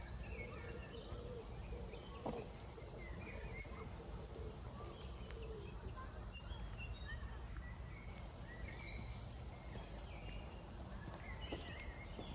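Birds chirping and calling here and there over a steady low background rumble, with a few faint clicks.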